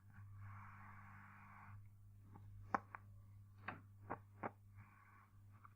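Loewe-Opta Magnet 3737W tube radio's loudspeaker giving a faint steady hum with patches of hiss while the FM band is tuned and no station comes in. Several sharp clicks come in the middle.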